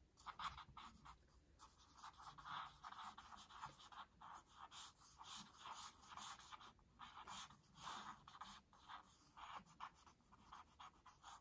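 Faint scratching of a charcoal stick on sketchbook paper: many quick, uneven back-and-forth strokes as dark areas of a drawing are shaded in.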